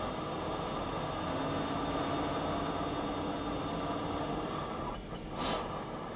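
Steady machinery hum and hiss inside the cabin of a Mir deep-sea submersible, with a faint low tone held for a few seconds. A brief hiss comes near the end.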